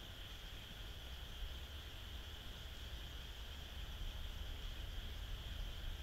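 A steady night chorus of insects chirring at a high pitch, over a constant low rumble.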